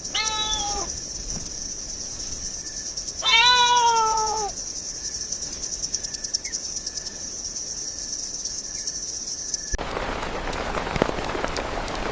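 A cat meowing twice, the second meow louder and longer, over a steady high-pitched background hum. Near the end the background turns into an even hiss like rain.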